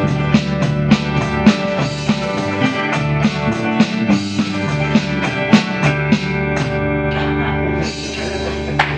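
Small live band of electric guitars, mandolin and drum kit playing a country-gospel song at a steady beat. The drums stop about seven seconds in and the last chord rings out.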